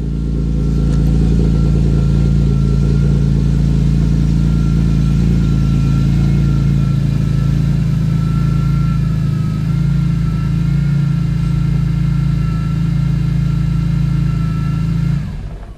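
BMW E46 M3's straight-six engine running steadily at a low, even speed, then stopping abruptly near the end.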